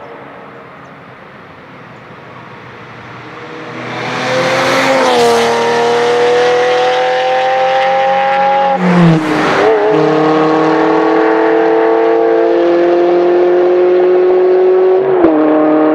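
Ferrari Testarossa's flat-twelve engine accelerating hard past and away. It gets loud about four seconds in, then climbs steadily in pitch, with two upshifts where the pitch drops sharply: about nine seconds in and again near the end.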